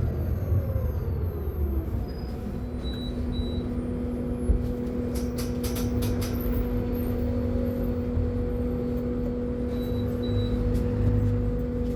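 Mercedes-Benz eO500U electric bus: the drive motor's whine falls in pitch during the first two seconds as the bus slows, then settles into a steady two-note hum over a low rumble. Two pairs of short high beeps sound about three seconds in and again near the end, with a few light clicks around the middle.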